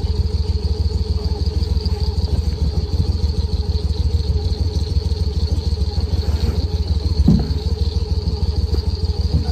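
Go-Devil surface-drive mud motor running steadily, pushing the boat along, with a brief knock about seven seconds in.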